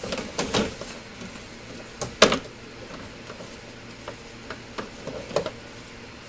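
Plastic under-engine splash cover of a Mazda 5 and its clips clicking and knocking as the cover is worked loose from its mounts by hand, a handful of separate sharp clicks with the loudest about two seconds in.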